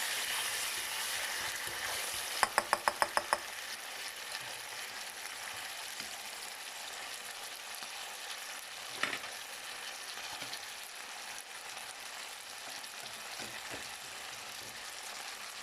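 Sliced chicken sizzling in hot oil in a pan while being stirred. A quick run of about eight sharp taps comes a little over two seconds in, and a single knock about nine seconds in.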